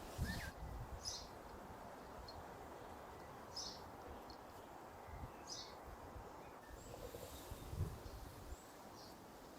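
Faint backyard ambience with short, high bird chirps every second or so over a steady hiss of background noise, broken by a few low bumps.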